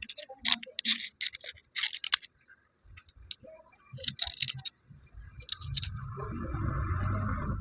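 Broken slate pencil pieces crunching and snapping in a quick run of crisp bursts, then scattered small clicks. From about six seconds in there is a steady rubbing, scraping noise.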